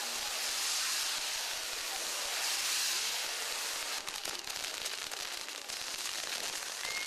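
Castillo firework tower with a spinning fire wheel burning: a dense rushing hiss that turns to rapid crackling pops in the second half.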